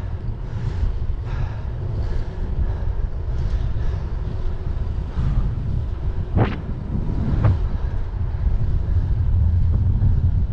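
Wind buffeting the microphone of a moving electric bike as it rides downhill, a steady low rumble with road and tyre noise. Two sharp knocks about a second apart come roughly two-thirds of the way through.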